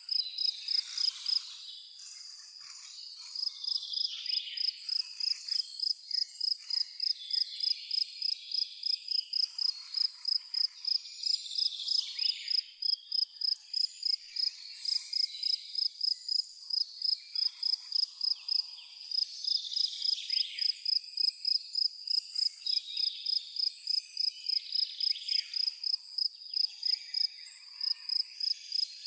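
Cricket chirping in an even, high-pitched pulse of about two to three chirps a second, pausing briefly near the start, with scattered bird calls around it.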